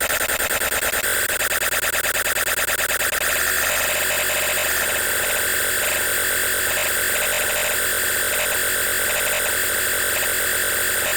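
Dirt Devil Simpli-Stik stick vacuum's motor running steadily, mostly a high-pitched hiss. It flutters quickly for the first few seconds, then evens out.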